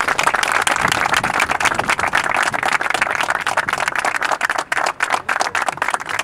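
A group of people clapping together in steady applause, thinning into scattered separate claps near the end.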